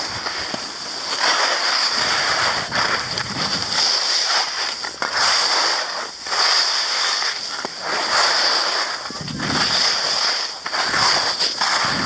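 Skis scraping and hissing over chopped-up piste snow, swelling and fading with each turn about every one to two seconds.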